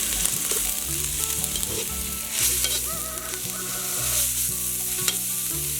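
Khmer spice ingredient and dried chilies sizzling in hot oil in a pan, stirred, with a few brief knocks of the utensil against the pan.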